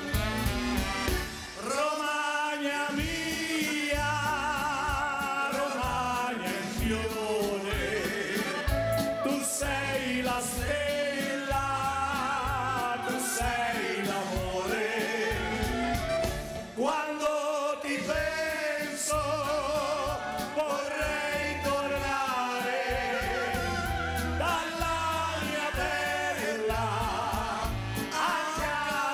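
Live band music: saxophone and clarinet carry the melody with a wavering vibrato over bass and drums with a steady beat.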